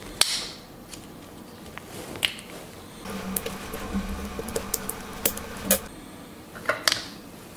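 Hands handling a small plastic-framed circuit board and its wires, with a few light clicks and taps against a low rustle.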